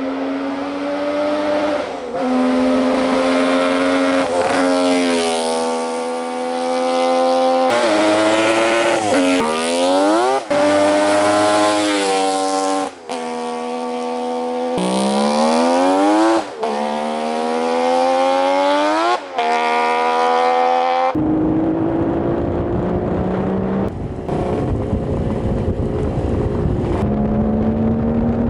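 Kawasaki 500 H1's three-cylinder two-stroke engine, fitted with expansion-chamber exhausts and silencers, revving up and down repeatedly in short edited bursts. Near the end it gives way to a noisier, steadier running sound at lower revs.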